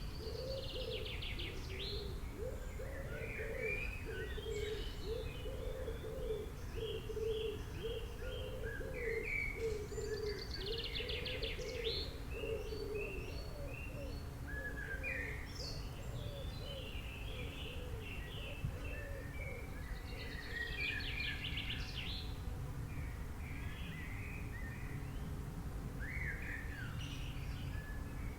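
Several songbirds chirping and trilling in overlapping high calls, with a lower, rapidly repeated warbling call through roughly the first half, over a steady low rumble of background noise.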